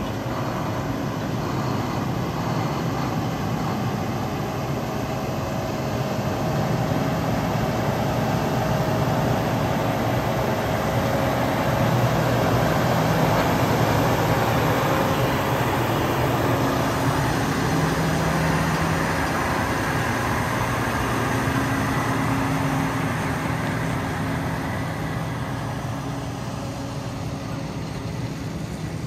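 Case IH Steiger 420 4WD tractor's diesel engine idling steadily, louder in the middle and fading toward the end.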